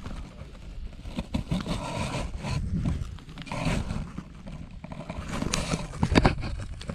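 Wind buffeting an outdoor camera microphone in gusts, with knocks and rustling near the end as the camera is handled.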